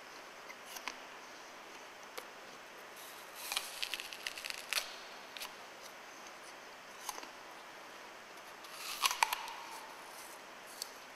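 A crisp Red Delicious apple being bitten and chewed: crunching and sharp clicks in two short clusters, about three and a half seconds in and again about nine seconds in. Scattered single clicks come between them, over a faint steady hiss.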